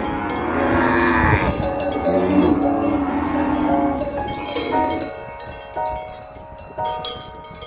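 A cow mooing over the first few seconds, set against background music of bell-like chiming notes that go on alone after the moo fades.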